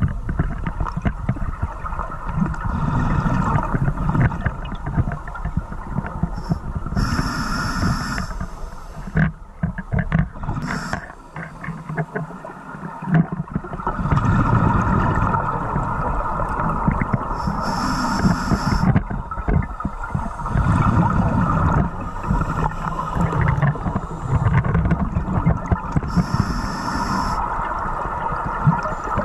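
Scuba breathing heard underwater: a regulator hisses three times, with gurgling rumbles of exhaled bubbles in between.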